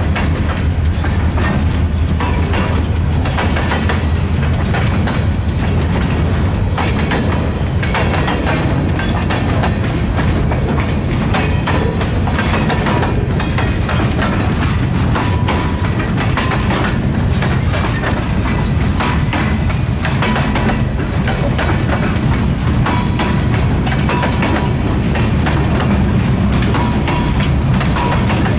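Freight cars (centerbeam flatcars loaded with lumber, then boxcars) of a long train rolling past, a steady loud rumble with the wheels clicking and clacking on the rails.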